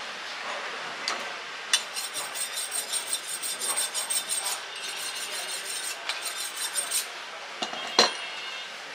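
Butcher's knife being honed on a sharpening steel: quick rasping metal strokes with a high ring, about three a second, in two runs. A single sharp knock comes near the end.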